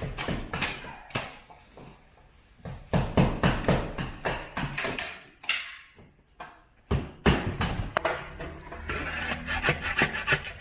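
Hand tool scraping and knocking against plaster in irregular strokes as old plaster cornice is worked off the wall, with a denser run of scraping near the end.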